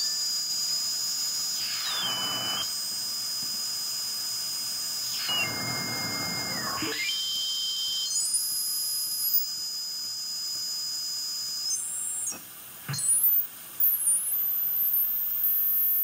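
Receiver audio from an RTL-SDR tuned across the 9 MHz IF of a ham transceiver: heterodyne whistles over hiss, one held high, others jumping up and down in pitch in steps as the tuning moves. The hiss dips briefly near the end with a sharp click.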